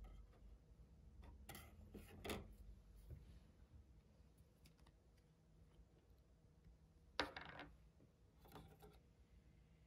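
Thin laser-cut MDF pieces being handled and laid down on a table: a few light wooden clacks about two seconds in. Then a single sharp tap about seven seconds in and a softer one shortly after, as a plastic glue bottle is taken up.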